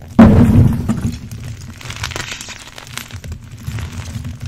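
Hands crushing crumbled blocks of gym chalk. About a quarter second in comes a loud, dull crunch as the hands press down into the chalk, followed by lighter crackling and crunching of small chunks and powder.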